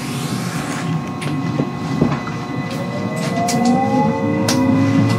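Traction motors of a JR West 223 series 0 electric train, driven by a Hitachi IGBT-VVVF inverter, whining under power as the train accelerates: from about two and a half seconds in, the whine climbs steadily in pitch. Under it run a rumble and several sharp clicks from the running gear.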